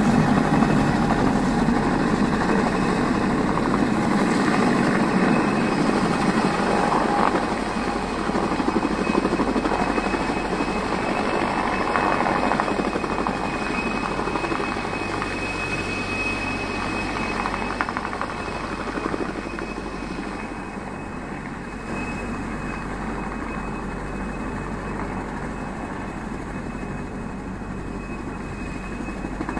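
Helicopter landing, its rotor beating and turbine running with a steady high whine as it settles onto snow in its own downwash. The sound grows gradually quieter over the second half as it sits on the ground with the rotor still turning.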